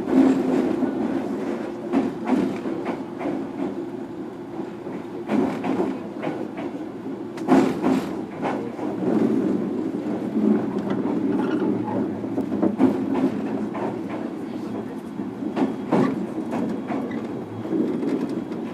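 Running sound heard inside a JR Kyushu 103 series (1500 subseries) electric motor car, MoHa 103-1508 with MT55 traction motors: a steady drone of motors and wheels on rail, broken by irregular clicks and clacks as the wheels pass over rail joints and points.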